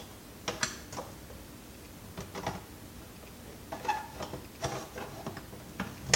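Irregular clicks and knocks of plastic vacuum-cleaner parts and tools being handled and worked at during a teardown, as a part resists coming off.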